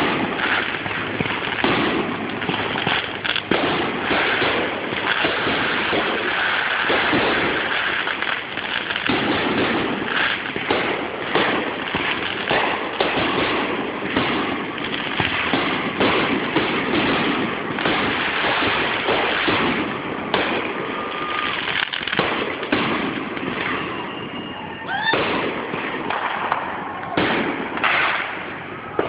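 Dense barrage of amateur fireworks: rapid, overlapping bangs, pops and crackling with hardly a break, thinning a little near the end, where a few whistles glide in pitch.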